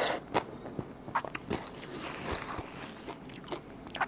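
Close-miked eating of raw blue swimming crab in spicy salad dressing: a run of sharp clicks and crunches as the shell is bitten, with wet sucking and chewing in between.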